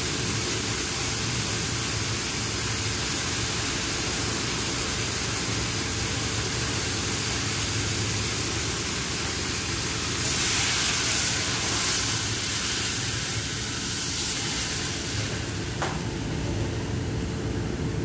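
Steady hissing background noise; about ten seconds in, water is poured from a stainless steel bowl into a wok of raw fish pieces, a splashing pour that lasts about three seconds.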